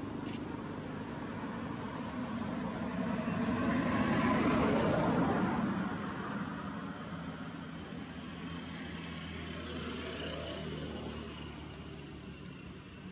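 Engine noise of a passing motor vehicle, swelling to a peak about four to five seconds in and then fading away.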